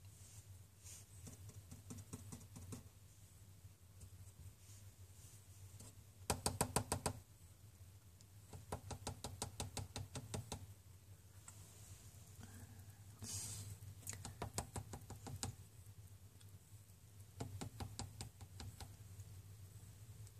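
Four bursts of rapid light clicking or tapping, about ten clicks a second and lasting one to two seconds each, the loudest about six seconds in, over a faint steady low hum.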